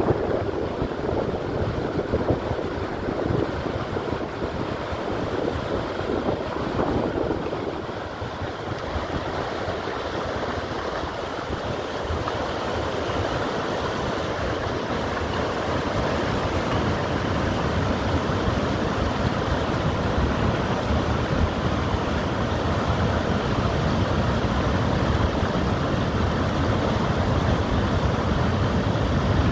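Floodwater pouring over a stepped river weir and rushing down its face: a steady, deep rushing noise with no breaks, which dips slightly at about eight seconds and then slowly grows louder.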